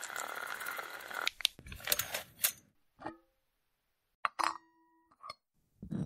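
A hiss with fast clicking in the first second, then a string of separate sharp clicks and light metallic clinks, a few of them ringing on briefly, the longest ring starting just past the four-second mark.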